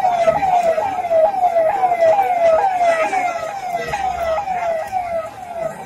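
Ambulance siren sounding a fast repeated falling wail, about three sweeps a second, growing fainter near the end.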